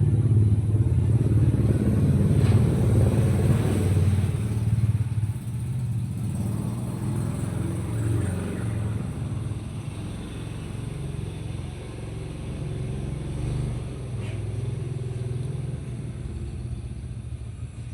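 A motor vehicle's engine running steadily, loudest over the first five seconds and then easing off a little.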